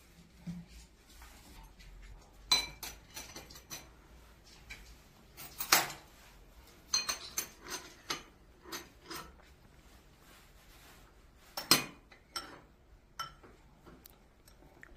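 Metal spoon and chopsticks clinking and tapping against ceramic bowls as they are set in place: a string of separate, irregular clinks, some briefly ringing, the loudest about two and a half, six and twelve seconds in.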